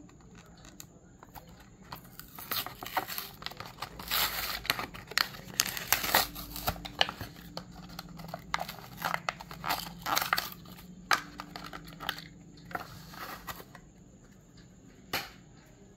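A die-cast toy car blister pack being torn open by hand: the cardboard backing card tears and the plastic blister crinkles in irregular crackling bursts through most of the stretch. A single sharp click comes near the end.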